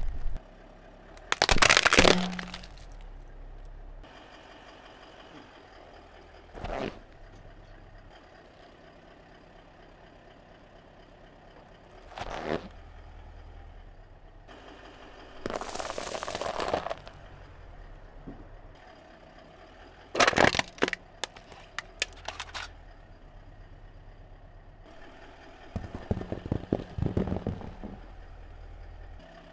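A car tyre rolling over and crushing one object after another: a run of separate crunches and cracks a few seconds apart, the loudest about two seconds in as cardboard Ferrero Rocher gift boxes and their foil wrapping give way. Between the crushes a faint low hum runs on.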